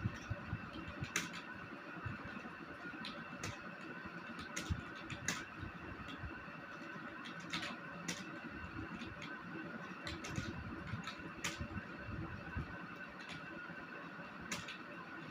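Computer keyboard keys clicking irregularly as someone types, over a steady background hum.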